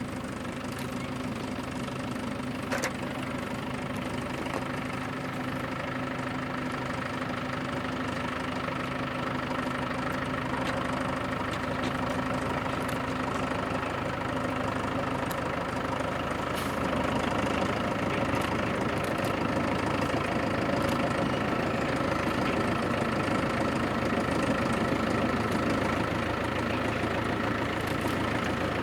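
Diesel engine of a small forest-railway locomotive running steadily. It grows somewhat louder over the stretch, with a step up a little past halfway.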